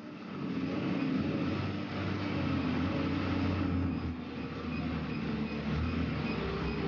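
Forging manipulator running steadily as it travels toward the forging press, a low mechanical drone with a hum over it that builds in the first half second.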